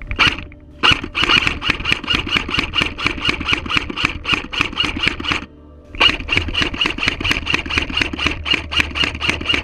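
Airsoft gun firing long strings of rapid shots, about seven a second, with a short break about five and a half seconds in before the firing resumes.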